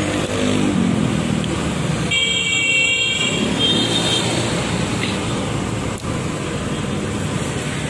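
Steady road traffic noise from passing vehicles. A high-pitched horn sounds twice, a longer toot about two seconds in and a shorter one just after.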